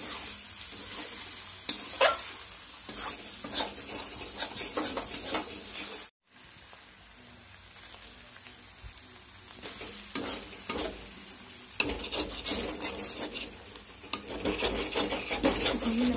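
Meat and onions frying in an aluminium kadhai, sizzling while a spatula stirs and scrapes the pan in short, repeated strokes. The sound cuts out briefly about six seconds in, and the scraping gets louder and quicker near the end.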